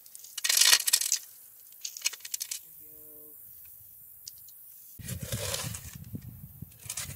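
Shovel blade crunching into a hole full of gravel, followed by a quick run of stones clinking and rattling. Later comes a low, scraping rustle of soil.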